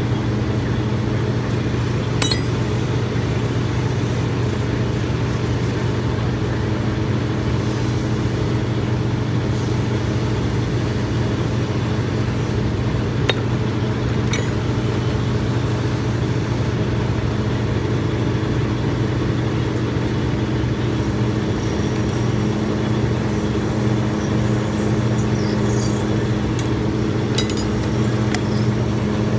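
Steady low hum of a running motor, with a few light clinks of metal hand tools being picked up and set down among other tools.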